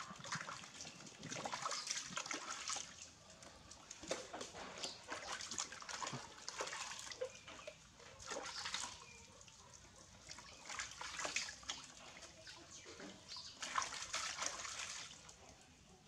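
Water splashing and sloshing in a plastic basin as a baby monkey is washed by hand, coming in irregular bursts with short quieter lulls.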